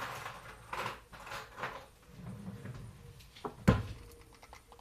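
A spoon and a small glass jar being handled on a tiled kitchen counter: soft scrapes and rustles, a small click, then one sharp knock a little under four seconds in.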